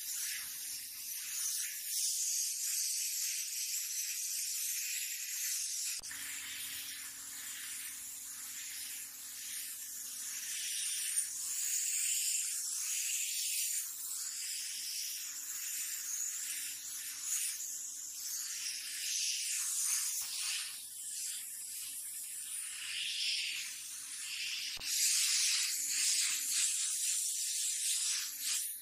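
Compressed-air gravity-feed paint spray gun hissing as it sprays paint onto a wall. The hiss rises and falls as the trigger is worked.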